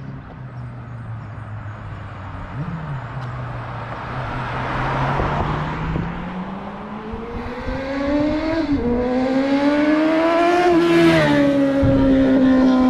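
Kawasaki Ninja 600 sport bike approaching under hard acceleration, its engine growing steadily louder as it climbs through the gears. The engine pitch rises, then drops sharply at two upshifts in the second half.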